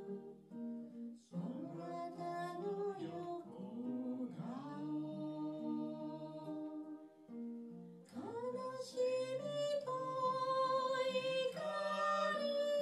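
A man singing a folk song, held sung phrases with a short break in the middle, accompanying himself on an acoustic guitar.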